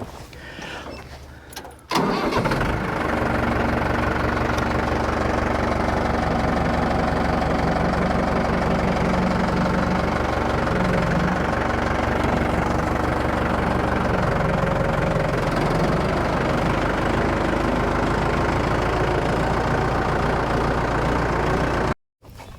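Farm tractor engine starting up about two seconds in, then running steadily. The sound cuts off suddenly near the end.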